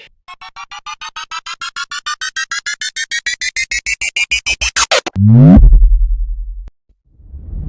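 Synthesized sound effect: a run of short electronic beeps that speed up and rise in pitch for about five seconds, then a loud deep tone that sweeps downward, holds as a low drone and cuts off suddenly.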